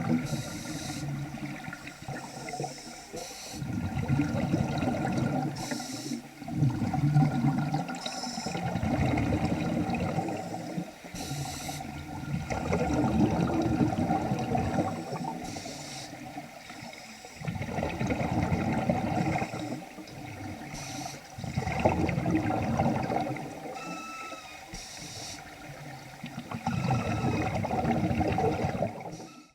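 Diver breathing underwater through a vintage Nemrod Snark III double-hose regulator: a rough, bubbling rush that swells and falls every few seconds, breath after breath, with short hisses and a few brief whistling tones near the end. These are unusual noises from the regulator, which is still working well.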